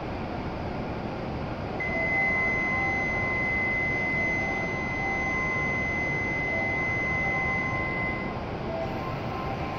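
A steady, high electronic signal tone begins about two seconds in and holds for about six seconds, with fainter lower tones coming and going under it, over the steady hum of a Shinkansen platform where the train stands waiting.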